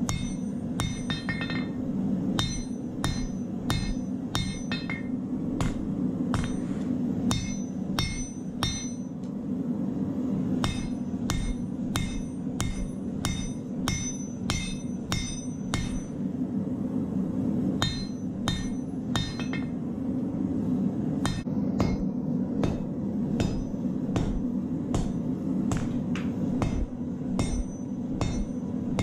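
Hand hammer drawing out a glowing steel knife blade on an anvil: regular blows about two a second, many with a bright ringing note, in runs with a few short pauses. Underneath runs the steady low rushing of the gas forge burner.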